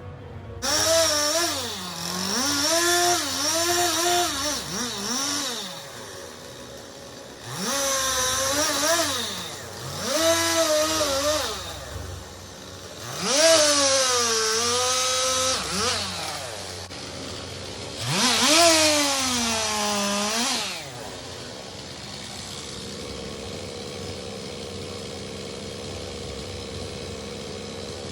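Two-stroke chainsaw revving in five bursts, its pitch climbing and sagging as the chain bites into wood and frees again. From about three quarters of the way in, the bursts give way to a steady, quieter engine sound.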